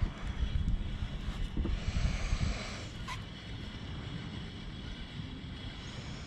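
Wind rumbling on the camera microphone out on open water, heavier for the first two and a half seconds and then steadier, with a single sharp click about three seconds in.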